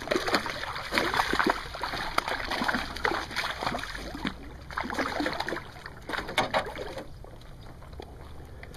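Hooked largemouth bass thrashing and splashing at the water's surface beside the boat, in quick irregular splashes that die down about seven seconds in.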